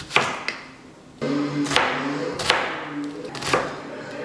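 Chef's knife chopping a red onion on a plastic cutting board: five sharp knocks, two in quick succession at the start, then about one a second. Background music comes in underneath about a second in.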